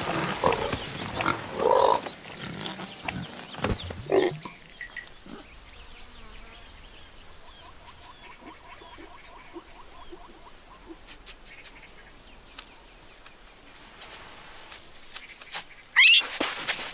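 An animal's calls, loud for the first four seconds or so, then a long quieter stretch with only faint sounds, and a loud sudden sound near the end.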